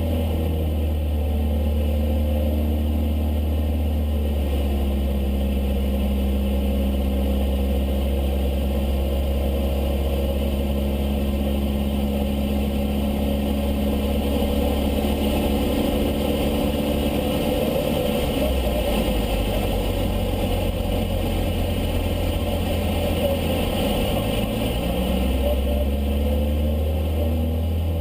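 Cessna 152's four-cylinder Lycoming O-235 engine and propeller running steadily in flight, the engine note shifting in pitch as the power changes about two-thirds of the way through and again near the end.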